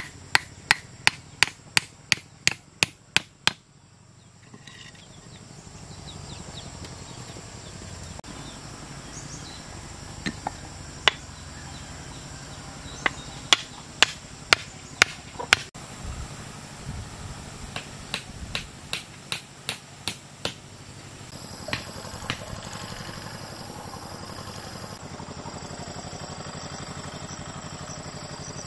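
A hammer striking bamboo poles, fixing crosspieces onto bamboo posts. There is a quick run of blows at about three a second for the first few seconds. After a pause come irregular groups of sharp knocks.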